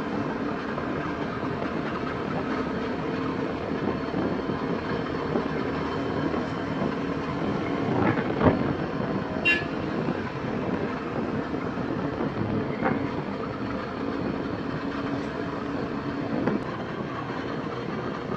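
Motorcycle engine running steadily while under way, over a steady rush of road and air noise. A brief louder jolt comes about eight and a half seconds in.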